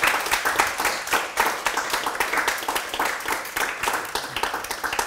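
A small audience applauding, many hands clapping in a dense, even patter.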